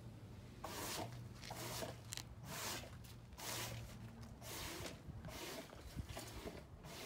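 Faint scuffing and rustling, in short bursts about once a second, over a low steady hum.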